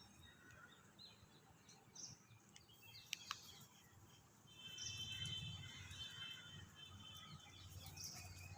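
Faint chirping of small birds, scattered short calls with a couple of clicks. About five seconds in, a held high note lasts for about a second and a half over a low rumble.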